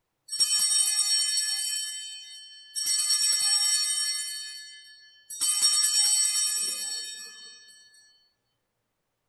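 Altar bells (a cluster of small Sanctus bells) shaken three times to mark the elevation of the chalice. Each ring is a bright jangle that starts sharply and fades out over about two seconds.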